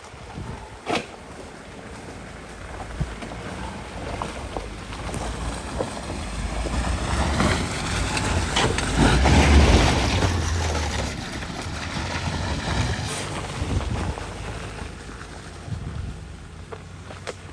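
A 4x4 SUV's engine running under load as it drives through mud and water, with splashing. It grows louder to a peak about nine seconds in, then fades as the vehicle passes, with a couple of sharp knocks early on.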